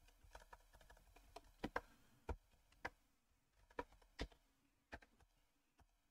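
Computer keyboard keystrokes: slow, uneven typing, about a dozen separate key clicks with pauses between them.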